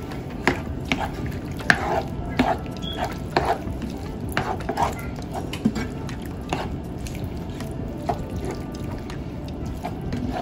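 A slotted spoon stirring wet ground turkey with salsa and water in a nonstick skillet: squishing with irregular clicks and scrapes of the spoon against the pan.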